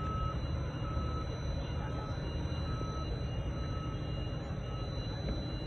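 Steady low rumble of a gantry crane carrying a concrete box girder, with a warning beeper sounding a short, even beep about once a second.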